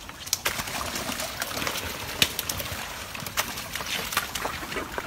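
A pile of young crocodiles scrambling over one another, their claws and scaly bodies scraping and clattering on wet concrete, with many scattered sharp clicks and knocks.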